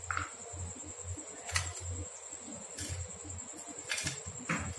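A few faint clicks and taps of chopped nuts and a plastic tray as a frozen kulfi is pressed and rolled in them. A steady high-pitched whine and a low hum run underneath.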